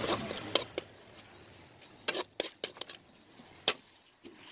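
Scattered sharp clinks and knocks of a metal utensil and an enamel plate being handled: a few early on, a quick cluster between two and three seconds in, and one louder clink near the end, over a faint hiss that fades about a second in.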